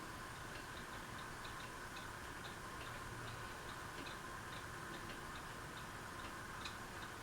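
Qurom hugger ceiling fan running on low speed: a faint steady motor hum with a light, regular ticking, about three ticks a second.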